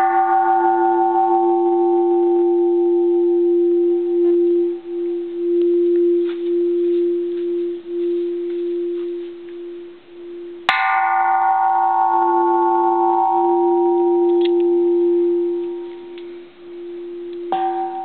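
Bronze Japanese Buddhist temple bell, cast in 1625, struck and left to ring. A low hum wavers in a slow pulse beneath brighter overtones that die away within a few seconds. It is struck again about eleven seconds in, and more lightly once more near the end.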